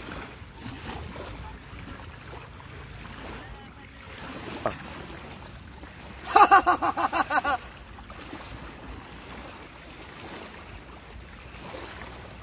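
Steady wind and lapping water at a lake's edge where a person is wading. About six seconds in, a loud, fast string of about nine pitched, voice-like pulses, like a laugh, lasts just over a second, and a single short knock comes shortly before it.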